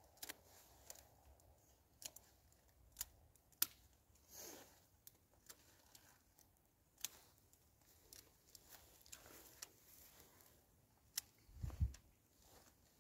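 Faint, scattered sharp clicks and snaps from willow rods being handled at the top edge of a woven willow panel, with a louder snap and a dull thump near the end.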